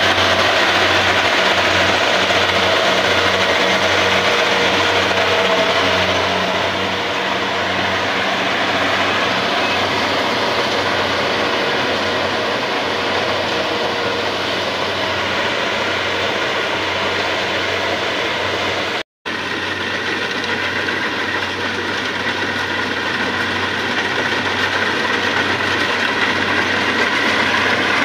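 Kubota crawler rice combine harvester running steadily, its diesel engine throbbing under the clatter of the machinery. The sound cuts out for an instant about two-thirds of the way through.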